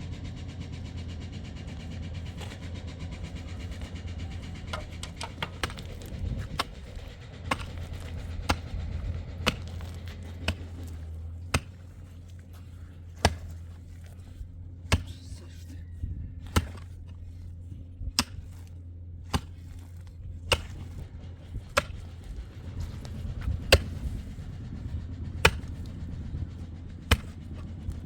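Repeated sharp strikes, about one every second and a half, beginning about six seconds in, over a steady low hum.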